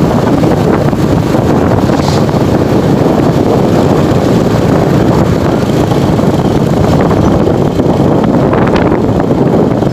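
Wind rumbling on the microphone of a moving motorcycle, with the bike's engine and road noise underneath, steady and loud.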